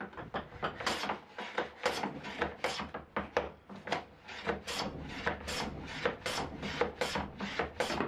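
Metal bench plane shaving a thin hardwood strip down to thickness in a leveling box. It makes quick, short back-and-forth strokes, each a rasping shave, about two and a half a second.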